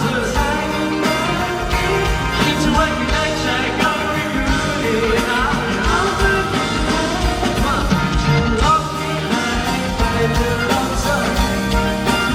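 Live pop-rock band music with a steady drum beat and full chords, and a singing voice coming in and out.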